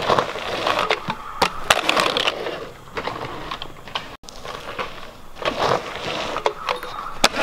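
Close crunching and scraping of dry dirt and grit on a dirt track, with scattered sharp clicks and knocks. The sound cuts out for an instant about four seconds in.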